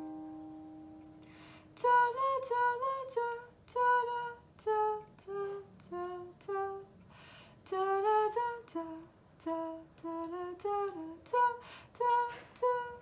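A ukulele chord rings out and fades away over the first second or so. Then, about two seconds in, a woman sings a slow melody in short phrases with no accompaniment.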